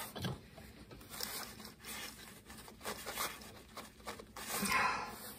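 Ignition coil lead wire being worked by hand through a tight rubber sheath: short, irregular rubbing and scraping of rubber on the wire's insulation, with a longer scrape near the end.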